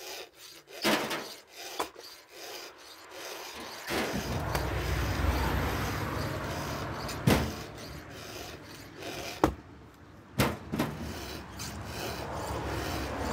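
A file rasping against the cutters of a chainsaw chain during sharpening, with sharp knocks now and then.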